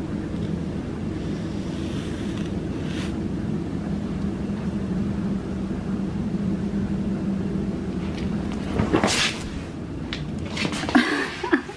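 A steady low hum and rumble, with the faint rasp of a FURminator deshedding brush being drawn through a cat's short coat. There is a sharp scrape about nine seconds in and a few knocks near the end.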